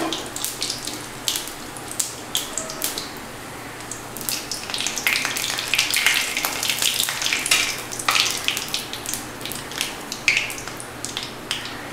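Cumin seeds, dried red chillies and bay leaves frying in hot mustard oil in a metal kadai: a steady sizzle with many sharp crackles and pops, busiest in the middle.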